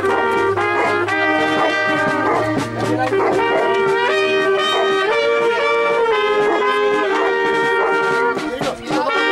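Brass band playing a tune, with held trumpet and trombone notes moving from pitch to pitch.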